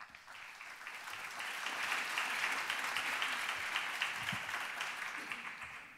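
Audience applauding, building over the first couple of seconds and fading out near the end.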